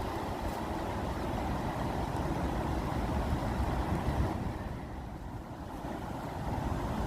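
Rushing water with a heavy low rumble, the hiss dipping for a moment about five seconds in.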